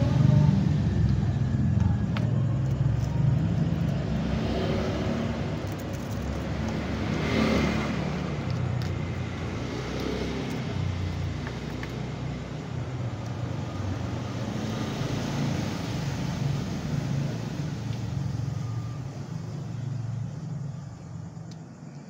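Low, steady rumble of a motor vehicle's engine running, gradually growing fainter. A few faint clicks from small objects being handled sit on top.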